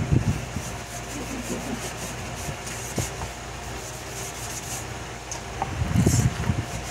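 A wood lathe runs with a steady low hum while a hand-held applicator rubs sanding sealer onto the spinning spalted gumbo limbo bowl. A louder scuffing rub comes about six seconds in.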